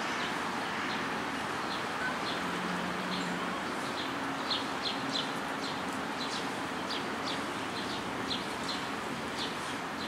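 Small birds chirping: short, high chirps repeating about twice a second, some louder than others, over a steady hiss of distant traffic.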